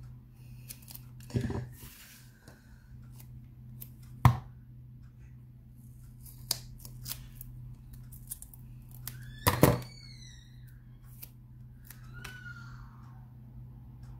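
Craft scissors snipping strips of foam 3D-pad tape and the strips being peeled and pressed onto a card: a few scattered sharp clicks and snips, the loudest about four seconds in and near the middle with a brief squeak, over a steady low hum.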